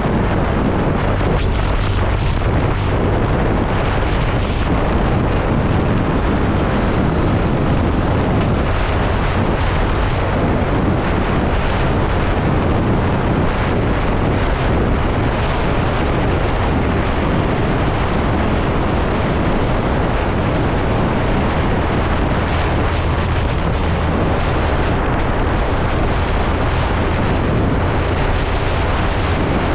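Yamaha motorcycle cruising at road speed, heard from the rider's camera: a steady low engine drone mixed with heavy wind noise on the microphone and tyre noise.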